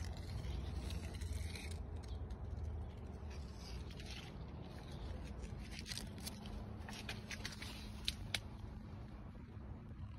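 Large fig leaves rustling and brushing against a phone as it is moved through the tree, with scattered handling rustles over a low steady rumble. Two sharp clicks about eight seconds in.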